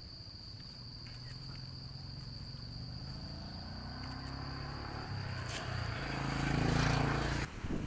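Insects giving a steady high-pitched drone, which stops about two thirds of the way through, over a low rumble that slowly swells and gains a hiss before cutting off abruptly near the end.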